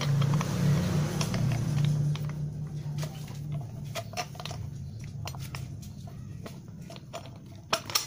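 Small clicks and taps of metal parts being handled and fitted onto a piece of old exhaust pipe, with a low hum that is strongest for the first three seconds and then fades. A few sharper clicks come near the end.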